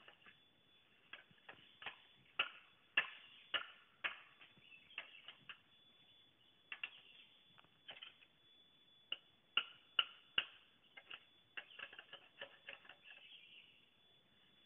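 Machete chopping at a long bamboo pole, trimming off its side shoots: irregular sharp chops, with a run of three loud ones about two to four seconds in and another about ten seconds in.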